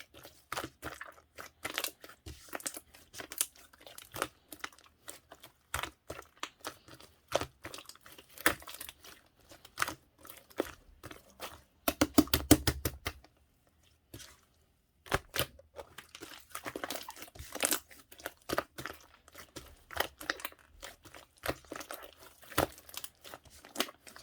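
Slime being squeezed and stretched by hand: irregular sticky clicks and crackles, with a quick run of pops about halfway and a brief pause just after.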